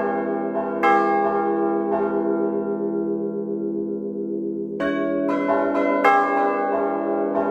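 A peal of five swinging church bells in C (Do3), hung in wooden headstocks and frame and rung by hand. A couple of strokes near the start give way to about four seconds without new strokes. The upper ringing dies away while a steady low hum carries on, then quick strokes resume about five seconds in.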